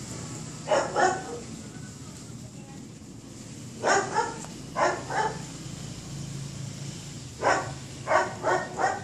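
A dog barking in short groups, about ten barks in all, coming in pairs and a quick run of three near the end.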